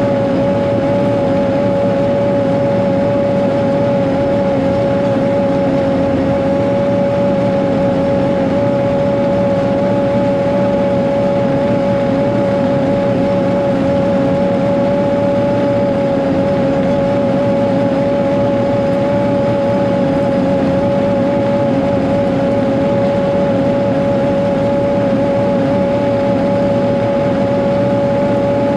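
Cat 140G motor grader's six-cylinder diesel engine running steadily under load as the grader drives along a dirt road, with a steady high whine over the engine's rumble.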